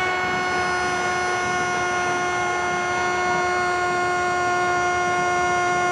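A football commentator's long, held goal cry of "¡Gol!", the drawn-out shout of Argentine TV commentary, sustained on one steady pitch without a break.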